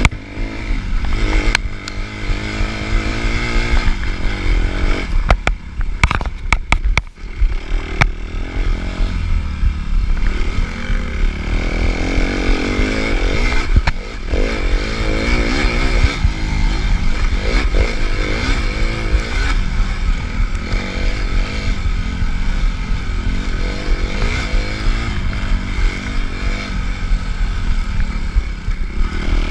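Suzuki RM-Z250 single-cylinder four-stroke dirt bike engine revving hard, its pitch rising and falling repeatedly as the throttle is worked over rough ground. A cluster of sharp knocks comes about five to eight seconds in.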